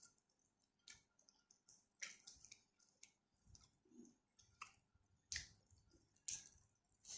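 Close-miked mouth sounds of someone eating: soft, wet chewing clicks and lip smacks, coming irregularly about once or twice a second.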